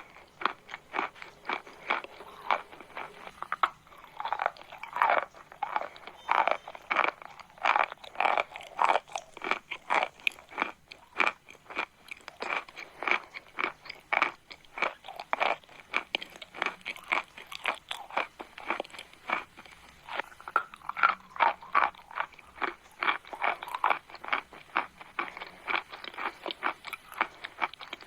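Chalk crunching close to the microphone: a dense, irregular run of sharp, crackly crunches with no pause.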